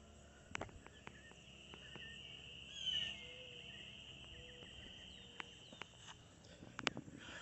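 Faint outdoor ambience: a steady, high insect buzz that starts about two and a half seconds in and fades about six seconds in, with a few short bird chirps as it begins and scattered faint clicks.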